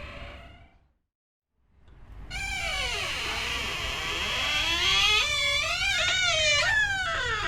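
A creaky door hinge creaking as a door swings slowly, with a wavering pitch that rises and falls. It follows the fading tail of a previous door sound and a brief silence.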